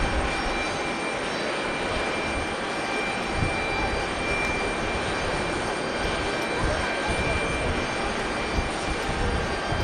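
Boeing 737-500's CFM56 turbofan engines running: a steady whine of several high tones over a broad rushing noise and uneven low rumble.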